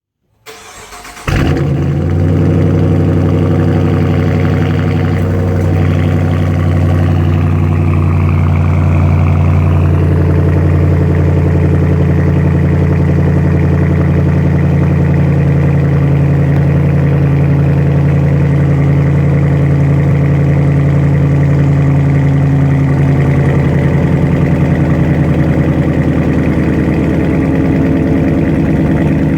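2017 Dodge Charger Daytona's 5.7-litre Hemi V8 starting up about a second in, then idling steadily through its exhaust.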